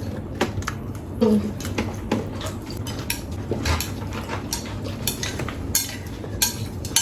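Eating utensils clinking and scraping against plates of noodles, in irregular sharp clicks.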